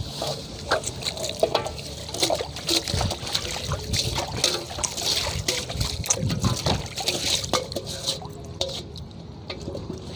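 Water sloshing, splashing and trickling as a large metal basin is rinsed out by hand in a shallow ditch, in quick irregular splashes that thin out near the end.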